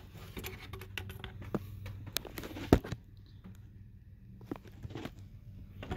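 Scattered small clicks and knocks of parts being handled in an engine bay, with one sharper knock a little under three seconds in.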